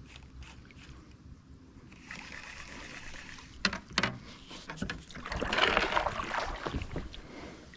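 Water sloshing and splashing as someone moves through the river shallows, with a few knocks about halfway through and a louder splash a little after.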